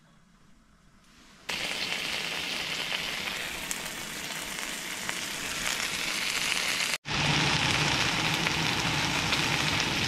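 Rump steaks sizzling in a frying pan, a steady hiss starting about a second and a half in. It drops out for an instant near seven seconds, then carries on as the steak fries with mushrooms.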